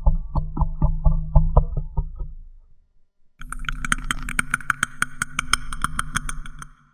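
Predator creature sound effect: a rapid run of clicks, about five a second, over a low drone, stopping about two and a half seconds in. After a short gap, a second clicking sequence with a higher ringing tone runs until just before the end.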